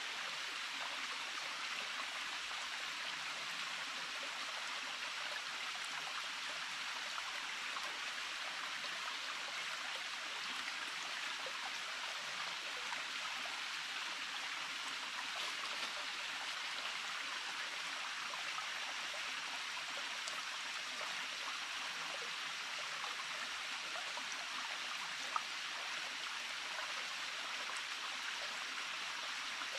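Small forest stream running, a steady even rush of water with one short tick near the end.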